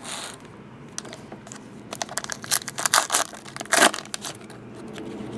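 Foil trading-card pack being torn open and its wrapper crumpled. A few small clicks at first, then a flurry of sharp crinkles and rips about two seconds in.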